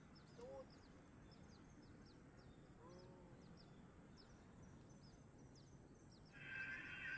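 Faint outdoor wildlife ambience: short high chirps repeating steadily, with a couple of soft lower calls. About six seconds in, a louder, steady high buzz starts.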